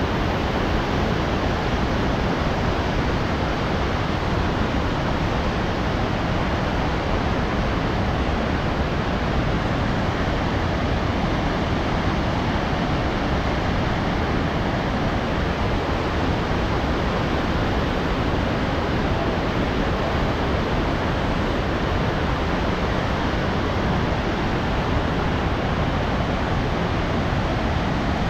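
Kootenai Falls on the Kootenai River, the water rushing steadily as a loud, even, unbroken roar of falling and churning water.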